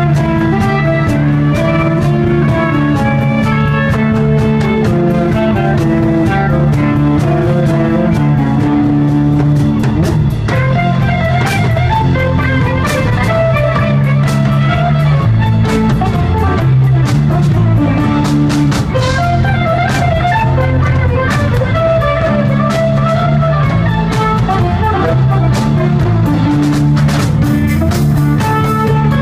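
Rock band playing live, loud and unbroken: electric guitars, bass and drum kit, with a melodic lead line moving over the top, recorded from the audience.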